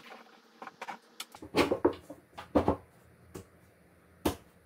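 Hollow knocks of an IKEA Lack side table's legs bumping against 3D-printed plastic couplers as the table is lowered onto the stack. Three louder knocks about a second apart, with a few lighter taps between.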